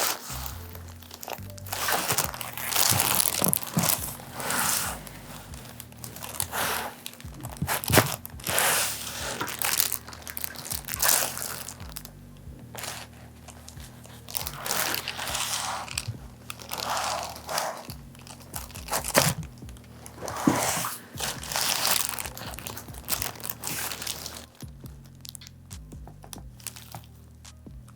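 Rustling and crinkling close to the microphone in irregular bursts, a few with sharp cracks, over steady background music.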